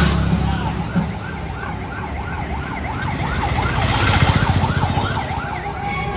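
Siren in a fast yelp, its pitch sweeping up and down about three times a second, over a loud low rumbling din.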